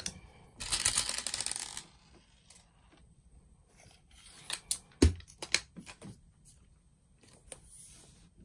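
Plastic airsoft BBs rattling in a small plastic tub as one is picked out, then a series of sharp handling clicks and one louder knock as the BB is loaded and the rifle is brought up to the chronograph.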